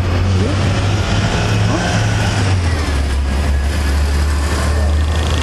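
Steady low hum of a running vehicle engine over street traffic noise; the hum drops slightly in pitch about halfway through.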